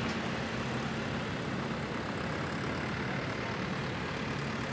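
Cummins diesel engine of a Ram pulling truck running flat out under load as it pulls a weight-transfer sled, a steady unbroken drone.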